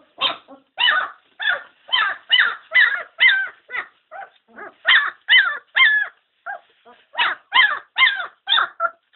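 German shepherd puppies yelping in a quick run of short calls, about two a second, with a few quieter ones in between.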